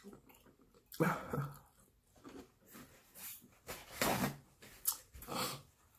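Close-up eating sounds: chewing and lip smacks, with a few short hummed "mm"s about a second in, around four seconds in and near the end.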